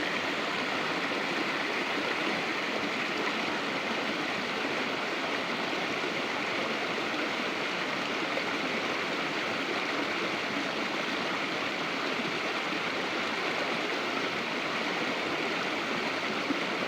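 Steady rushing of flowing water, an even wash that does not change.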